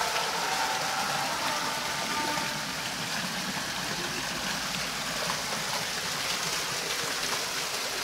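Water falling and splashing steadily onto the stones of an artificial rock waterfall.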